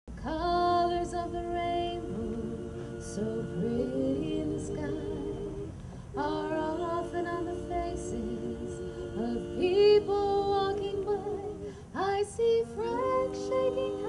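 Several voices singing a slow song in harmony, holding long chords in phrases that break off and start again a few times.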